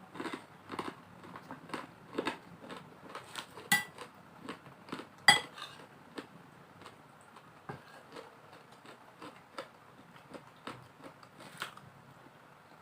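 Close-up eating sounds: chewing and crunching with a spoon clinking against a plate, two sharp ringing clinks about four and five seconds in. The clicks come thick at first and thin out later.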